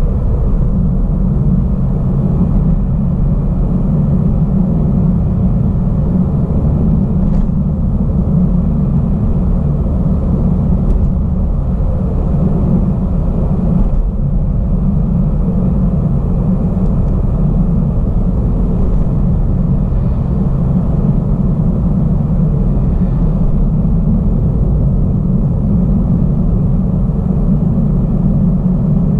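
Steady low rumble of a car driving at an even speed on a paved road, heard from inside the cabin: road and engine noise.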